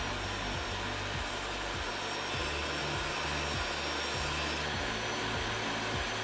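Jobsite table saw running steadily as it rips a PVC deck board lengthwise.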